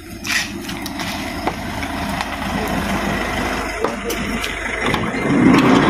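Ambulance van's engine idling, a steady low rumble that gets louder near the end.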